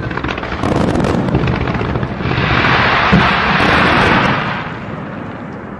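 Fireworks bursting in rapid succession, a barrage of booms and pops. A dense hiss swells about two seconds in, then the noise fades away near the end.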